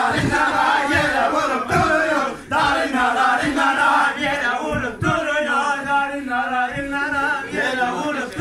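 Men's voices singing a chant-like folk tune, with a low thumping beat under it.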